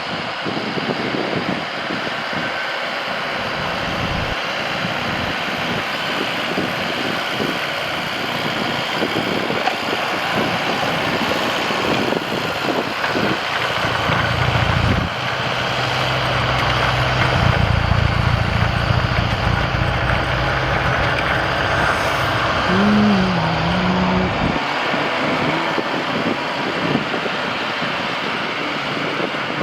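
Tractor and snowblower running, with a steady rushing noise throughout. A deeper engine hum comes in about halfway through and drops away about ten seconds later.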